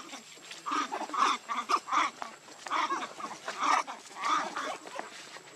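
Macaques calling: a string of about ten short, loud calls in quick, uneven succession.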